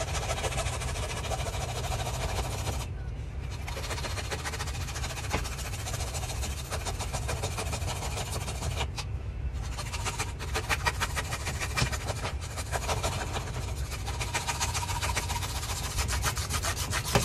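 Hand saw cutting through the hard shell of a large painted spiny lobster: a steady rasping of quick back-and-forth strokes, broken by two short pauses.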